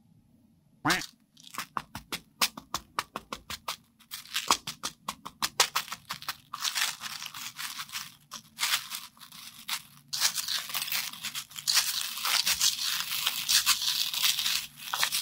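Candy-coated chocolates clicking and rattling in a plastic toy bathtub as a hand stirs them, scoops handfuls and lets them pour back in. First come scattered single clicks, then from about six seconds a dense, continuous rattle. About a second in there is a short squeak that rises in pitch, like a rubber duck toy.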